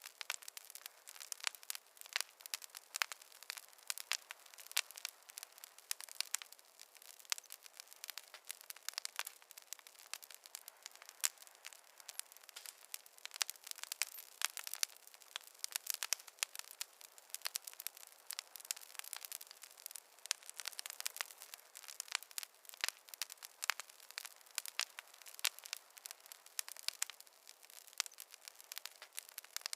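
Wood fire crackling: dense, irregular snaps and pops over a soft hiss, with no low roar.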